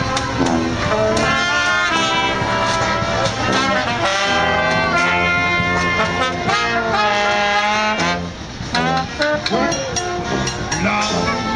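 A street brass band playing live: trumpets, trombone, clarinet and sousaphone together in a lively tune, with a brief lull about eight seconds in.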